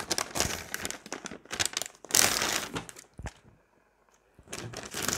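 Plastic MRE packaging crinkling and rustling in irregular bursts as it is handled, loudest about two seconds in, with a short pause around four seconds.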